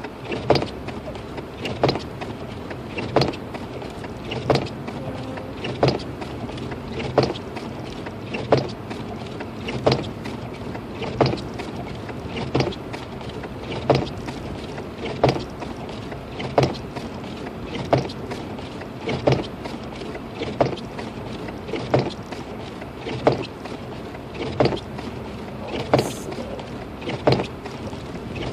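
Windshield wipers of a 2006 Lexus IS250 sweeping at a steady pace inside the car's cabin, a knock at each end of the stroke about every 1.3 seconds, over the steady low hum of the car driving slowly.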